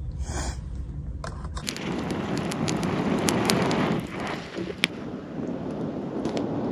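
Wood fire crackling: a steady hiss with scattered sharp pops and snaps.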